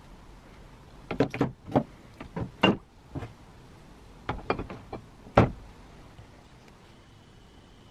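Rusty cast-iron and steel jack parts being dropped into a plastic tub of liquid: a string of sharp clunks and knocks, about a dozen in four seconds. The loudest comes about five and a half seconds in, as the heavy jack body goes in.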